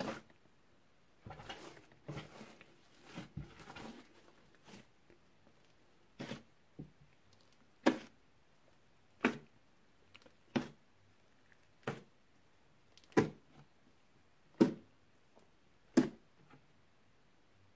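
Hand squeezing a thick fluffy slime made of clear slime mixed with shaving foam, with soft crackly squishing for the first few seconds. Then a series of separate short squelches, roughly one every second and a half, as knuckles are pressed into the slime spread flat.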